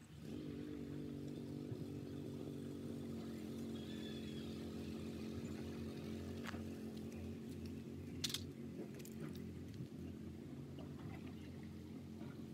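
A motor running steadily, a low hum with several constant tones, with a sharp click about eight seconds in.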